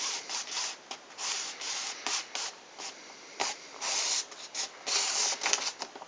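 Fingers rubbing and crinkling white repair tape and the thin tail covering as the tape is worked around the tail's edge. The sound comes in short, irregular rustling bursts.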